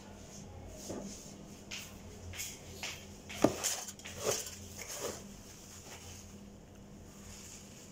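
A few scattered knocks and rustles of a person moving and handling things at a table, the loudest knock about three and a half seconds in, over a low steady hum.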